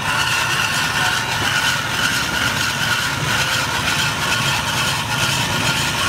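An engine running steadily, with general street noise.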